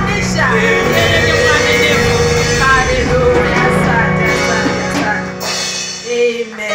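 Live gospel worship singing: a woman's voice leading a song through a microphone over steady instrumental backing, with the congregation clapping.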